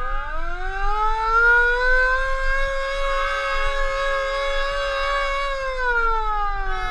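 Sirens wailing. One rises in pitch over about two seconds, holds a steady tone, and falls near the end, while another siren's sliding tone crosses it at the start and again at the end.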